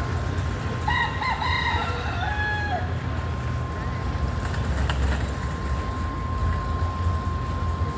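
A rooster crows once, about a second in: one call of under two seconds that holds and then drops at the end. Under it are a steady low rumble and a faint steady tone.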